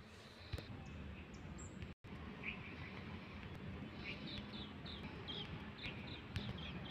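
A bird chirping: a quick run of short, high chirps, about three a second, over a steady low background rumble.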